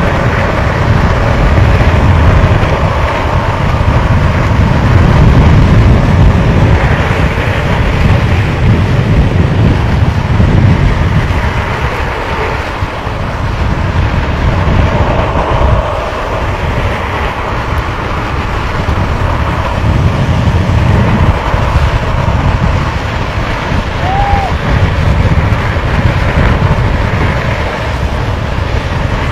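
Loud, steady rush of wind over the microphone at downhill speed, with the rumble of longboard wheels rolling on asphalt underneath it, the level swelling and easing in gusts.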